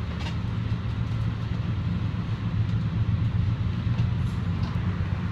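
Commuter train rolling along a station platform, heard from inside the passenger car: a steady low rumble and hum.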